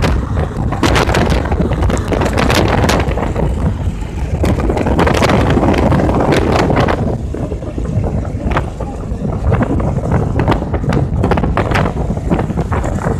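Loud wind buffeting the microphone, mixed with road noise from a car moving at highway speed, gusting unevenly.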